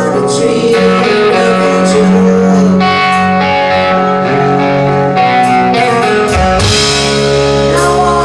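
Hard rock band playing live in an instrumental stretch, with electric guitar to the fore over the band. The bass moves to a new, lower note about six and a half seconds in.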